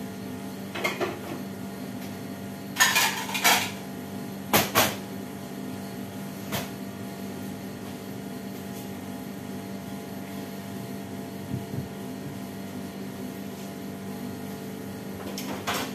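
Plates and kitchenware clinking and clattering as they are handled at a kitchen sink, in short bursts, the loudest about 3 and 5 seconds in, over a steady low hum.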